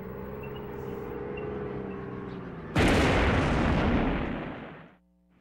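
A steady low drone, then about three seconds in a sudden loud explosion, the detonation of an anti-tank bomb strapped to a dog. The blast rumbles and dies away over about two seconds before cutting off.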